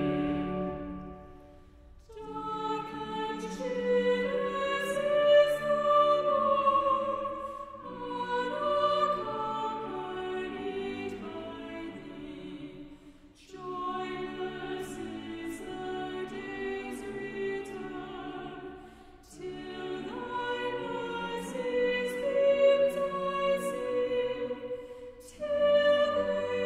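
A hymn being sung, its verse going line by line in held phrases of several seconds, with short breaks between the lines.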